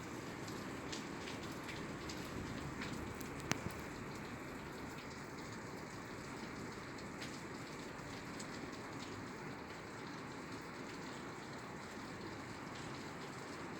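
Steady rain falling on a roof, with scattered drops ticking and one sharper tick about three and a half seconds in.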